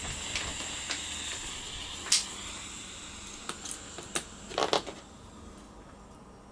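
A few light clicks and taps of small tools and wires being handled during a repair of string lights: one sharp click about two seconds in, then scattered clicks and a quick cluster of taps a little later, over a steady faint hiss.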